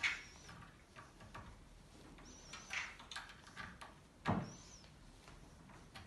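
Quiet handling of a drill bit depth collar: small metallic clicks and scrapes as the collar is slid along the bit to the door edge and its grub screw retightened. There are a few brief high squeaks, and a louder knock comes about four seconds in.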